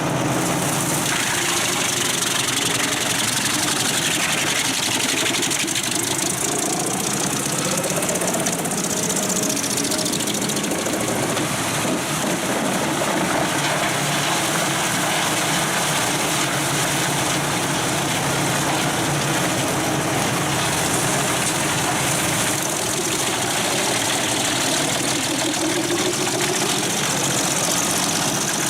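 Pezzolato PTH 1400/1000 Allroad self-propelled drum chipper running under load, its 700 hp Volvo engine and spinning steel drum chipping logs fed in by the arm. A loud, steady din with engine tones, rising briefly in pitch about a quarter of the way in and again near the end.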